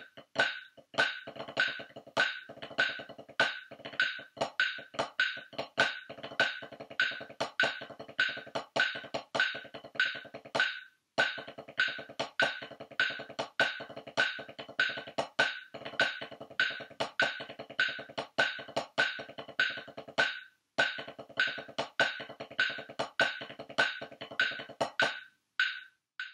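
Drumsticks on a practice pad playing a rudimental snare solo: fast, dense strokes in a steady rhythm, with a bright high click marking the beat about twice a second. The playing breaks off briefly three times and ends near the close.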